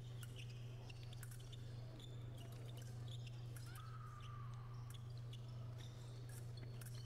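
Faint arena sound of fencers' shoes squeaking and tapping on the piste as they move in guard, over a steady low hum. One squeak, falling in pitch, comes about four seconds in.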